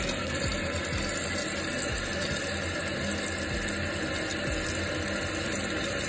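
Toilet running nonstop, a steady rush of water in the tank. The flapper has come off its hinge, so the tank can't fill and the fill valve keeps running.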